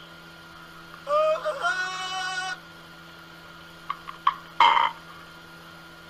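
Amazon parrot calling: a drawn-out pitched call that rises at first and then holds steady, then a few clicks and a short, loud, harsh squawk, over a faint steady hum.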